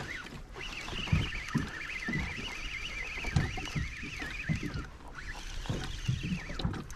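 Water slapping against the plastic kayak hull in irregular low knocks. A wavering high whine rises and falls for a few seconds in the middle.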